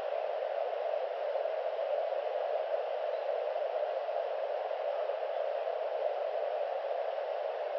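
Steady, even hiss of background noise from a live nest webcam's audio feed, with no distinct calls or movements standing out.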